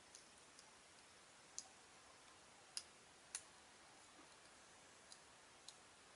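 Faint, sharp plastic clicks from a Beyblade top's parts being twisted by hand while trying to shift its height-changing CH120 track. About half a dozen scattered clicks, the loudest pair about three seconds in.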